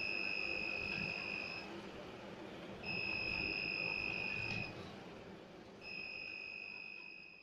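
Electronic buzzer on an Arduino railway-crossing circuit sounding its warning while a train is at the crossing: three long high-pitched beeps of about two seconds each, one about every three seconds, over a faint low hum.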